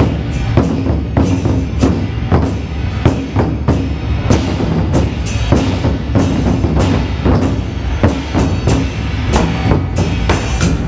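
Ensemble of large Chinese barrel drums beaten with sticks: a dense run of rapid, deep, booming strikes mixed with sharper, clacking hits.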